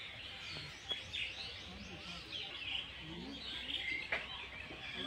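Small birds chirping and calling in the trees, many short overlapping chirps, with two sharp clicks about a second in and near the end.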